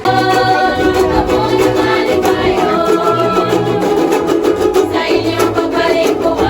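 Music with a steady beat and a repeating bass line, starting abruptly at the outset.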